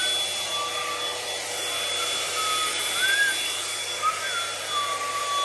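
Clickon 2-in-1 hot-air brush styler's blower running steadily as it is drawn through hair, with a whine that wobbles up and down in pitch several times.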